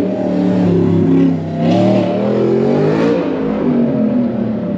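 Car engine revving, its pitch climbing and dropping a couple of times around the middle, over a steady low engine note.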